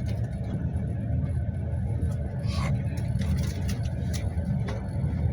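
Passenger train rolling along the rails, heard from inside the carriage: a steady low rumble of the wheels with a few sharp clicks and knocks scattered over it.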